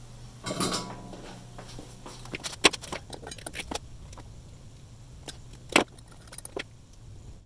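Scattered sharp metallic clicks and clinks of tools and wires being handled while wiring a tube radio chassis, with two louder clicks about two and a half seconds in and again near six seconds.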